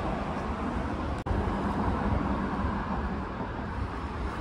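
Steady low rumble of outdoor background noise, cutting out for an instant about a second in.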